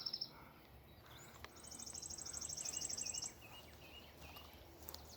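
Quiet outdoor ambience with a high, rapid bird trill lasting about two seconds, followed by a few faint short chirps.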